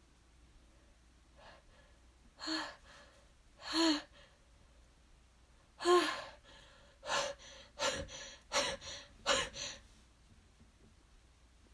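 A woman's exaggerated sneeze buildup: drawn-out, voiced gasping inhales, then a quick run of short, sharp breaths, with the sneeze still not coming.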